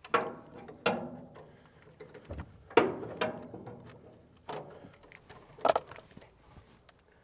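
A series of sharp metallic clanks and knocks, each ringing briefly, from hand tools and parts striking the old diesel engine's metal as it is worked on near the starter.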